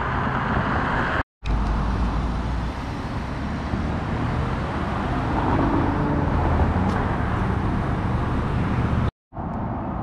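Steady road noise of a car driving, with a low rumble, cutting out briefly twice: about a second in and near the end.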